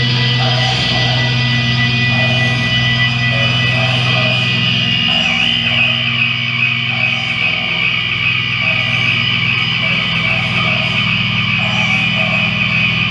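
Live doom metal: heavily amplified, distorted electric guitars droning on long sustained notes, with steady high ringing tones above them and no clear drum strikes.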